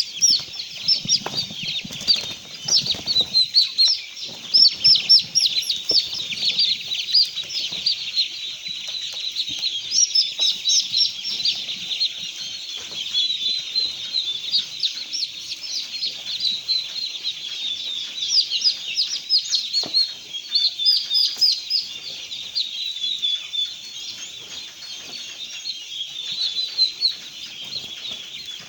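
Many small birds peeping and chirping densely and continuously, their short high calls overlapping throughout. There is low rustling and bumping in the first few seconds.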